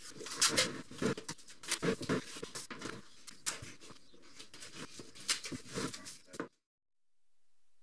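Handling noise from a coil of black rubber rubbing strake being worked on a wooden workbench: irregular scrapes, rustles and light knocks, which cut off abruptly about six and a half seconds in.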